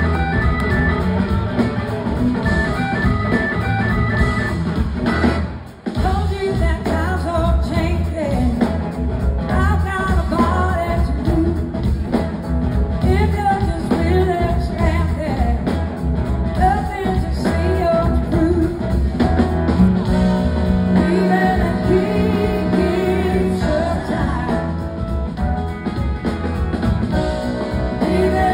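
A live blues-rock band playing with guitars, organ and drums, with singing over it, recorded from the audience in a concert hall. The sound briefly drops out about six seconds in.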